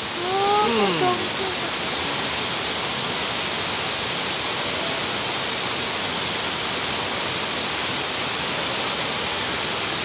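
Waterfall rushing: a steady, even hiss of falling water that holds unchanged throughout. A brief voice sound lasts about a second at the start.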